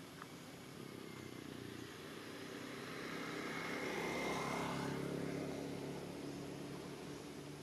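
A motor vehicle driving past: engine and road noise build up gradually, are loudest around the middle, then fade away.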